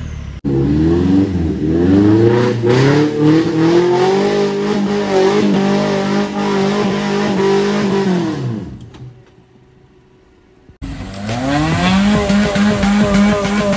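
Off-road 4x4 engine revving hard under load, its pitch rising and then holding before it falls away to a lull about nine seconds in. About eleven seconds in, another engine cuts in abruptly, revving steadily.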